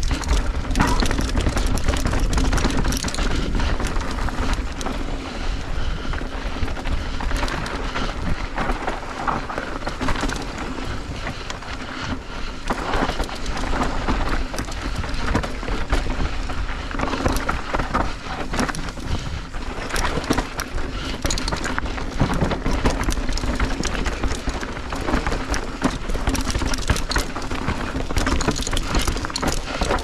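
Mountain bike riding fast down a rough trail: tyres rolling and crunching over dirt, rock and dry leaves, with steady rattling and knocking from the bike over the rough ground and a heavy low rumble.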